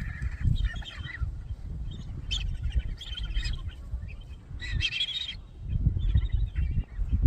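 Birds calling in several short bursts of chirps, the longest and loudest about five seconds in, over a steady low rumble.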